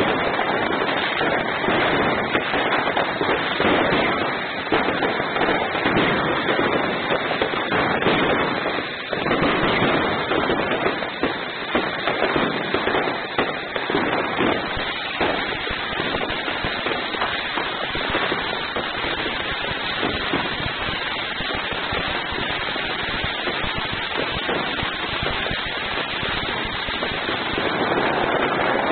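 Ground firework fountain spraying sparks, with a continuous hiss and dense, rapid crackling.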